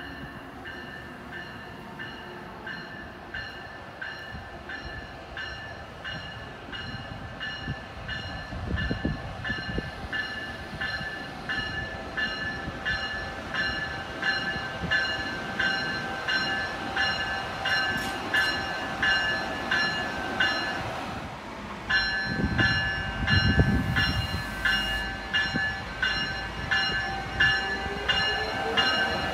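An Amtrak ACS-64 electric locomotive approaching with its bell ringing steadily, about one and a half strokes a second, the ringing and the train's rumble growing louder as it nears.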